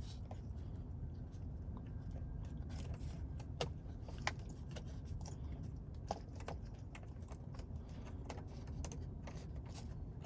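Scattered small clicks and taps as plastic wiring plugs and wires are handled and fitted behind a steering wheel, over a faint steady low background.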